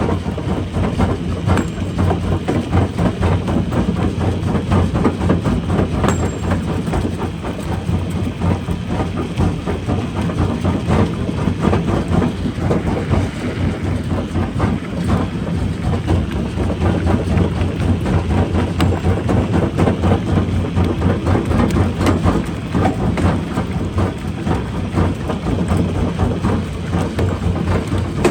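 Industrial rock crusher running under load, a steady low hum with a continuous clatter and knocking of rocks being broken and tumbling through the machine.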